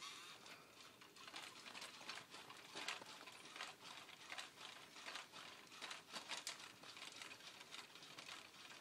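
Faint, irregular clicking and ticking from a robotic dinosaur toy's motors and plastic parts as it walks and swings its head and tail.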